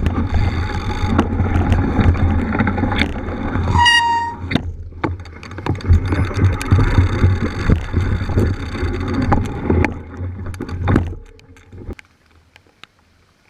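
Mountain bike riding over a rough, wet off-road trail: heavy rumble on the microphone with tyre and frame rattle and knocks. A short pitched squeal sounds about four seconds in, and the noise falls away near the end as the bike slows or stops.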